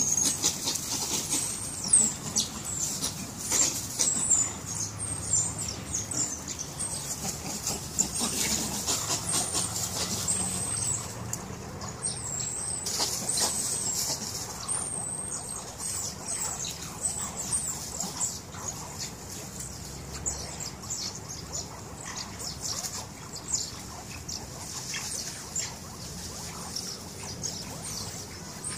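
A mongoose pack foraging: scratching and rustling in dry leaves and soil, with a run of short, high-pitched chirps and twitters, busiest in the first half.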